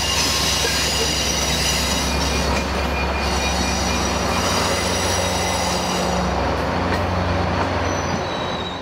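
Amtrak California diesel-hauled passenger train rolling past over a railroad diamond crossing. The locomotive's steady low engine drone runs under high, ringing wheel squeal and rail noise from the passing bilevel cars, fading near the end.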